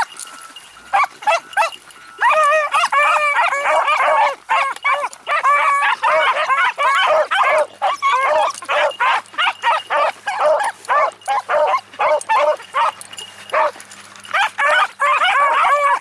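A pack of beagles baying on a trail, several dogs calling over one another in a dense, continuous chorus. The chorus picks up about two seconds in and dips briefly a couple of seconds before the end.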